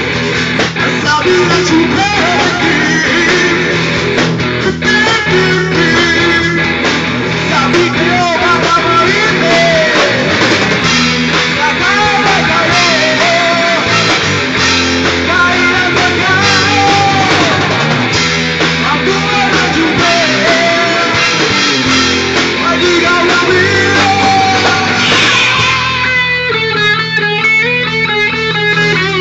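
Rock music with guitar, drums and a singer. About 26 seconds in, the singing and low end drop away and the guitar carries on alone.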